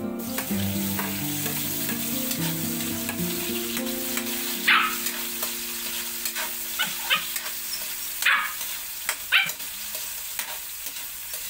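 Tomatoes, garlic and onion sizzling in oil in a steel wok over a gas flame, stirred with a metal spatula that scrapes sharply against the pan several times.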